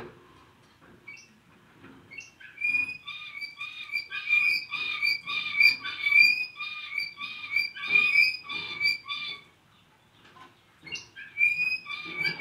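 Spanish Timbrado song canary singing discontinuous song: a chain of repeated, evenly spaced ringing notes at about two a second, breaking off for about two seconds near the end and then starting again.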